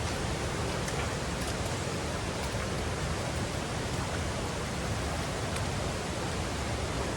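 Steady, even rushing hiss of water in the rainforest, with a few faint ticks.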